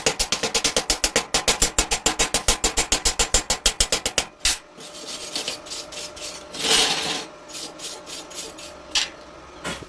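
Fast, evenly spaced mechanical tapping, about eight or nine strikes a second, that stops about four seconds in. Irregular scraping and rubbing follows, with a few single clicks.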